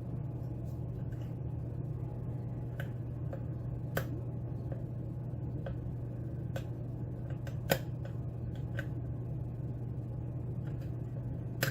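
Small, sharp metallic clicks and ticks of a hook pick and tension wrench working the pins inside a Yale-keyway pin-tumbler lock during single-pin picking. They come irregularly, with louder clicks about four seconds in, near eight seconds and at the very end, over a steady low hum.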